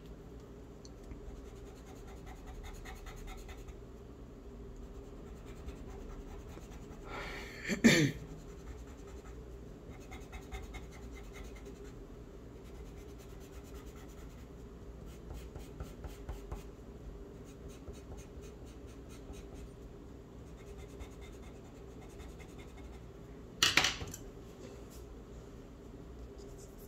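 Pencil scratching faintly on drawing paper as outlines are drawn stroke by stroke, over a steady low hum. There are two brief louder sounds, about eight seconds in and near the end.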